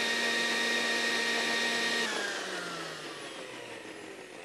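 Countertop blender running at full speed, loud and steady, puréeing until very smooth. About two seconds in it is switched off, and the motor winds down with a falling whine that fades away.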